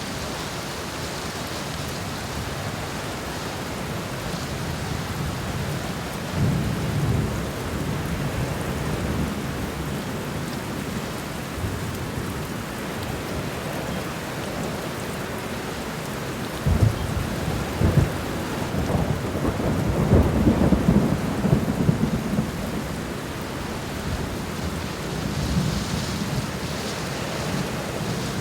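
Heavy rain falling steadily, with thunder rolling through it. There is a low rumble about a quarter of the way in, then two sharp cracks about two-thirds through that roll into a longer rumble and die away.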